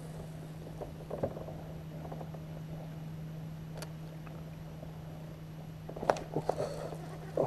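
Steady low hum on a boat, with a few short knocks and clicks: one about a second in, one near four seconds and a quick cluster around six seconds.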